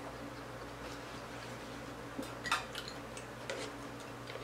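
Eating sounds at a table: a few faint, sharp clicks and clinks, the loudest about two and a half seconds in, over a steady low hum.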